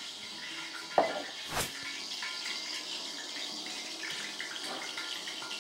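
Oil sizzling steadily in a covered pot on the hob. A sharp knock comes about a second in, with a second, softer clatter just after.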